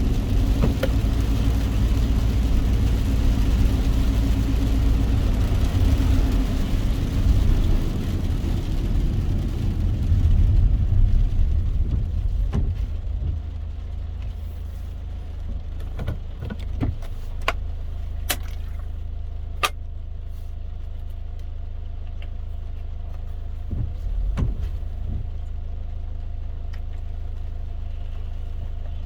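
Car driving in the rain: low engine and road rumble with a wet-tyre hiss, which fades about twelve seconds in as the car slows and settles to a steady low idling hum, with scattered sharp ticks.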